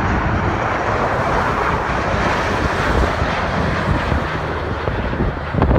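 Engine noise of an Air Canada Airbus A330 passing low overhead on landing approach, a steady rushing sound that eases slightly as the jet moves away. Wind rumbles on the microphone underneath.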